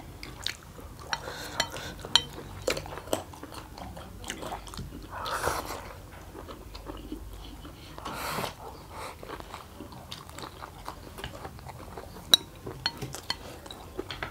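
Close-up eating sounds of two people having instant noodles: chewing and biting, with chopsticks clicking against the plates. Two longer noodle slurps stand out, about five and eight seconds in.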